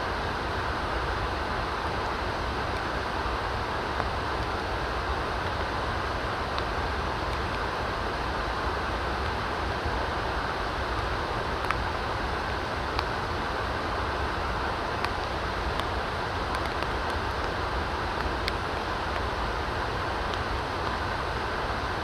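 Steady rushing outdoor background noise with a few faint ticks.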